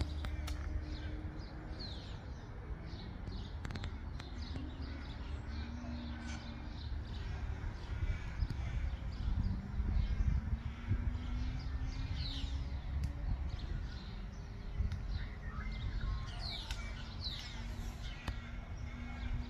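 Birds chirping: a scattered run of short, high, falling calls over a steady low rumble.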